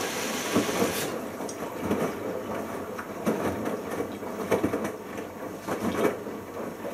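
Bosch Logixx washing machine on its first rinse, the drum tumbling with water sloshing in irregular swishes. A steady hiss cuts off about a second in.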